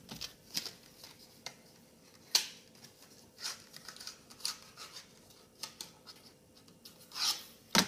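Plastic paint markers clicking and tapping together as they are handled and sorted, with a sharper click about two and a half seconds in and a brief rustle near the end.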